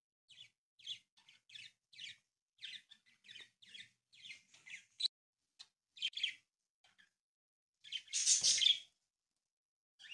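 A square sheet of origami paper rustles and crinkles in a run of short, crisp bursts as hands fold and crease it, with a louder, longer rustle about eight seconds in.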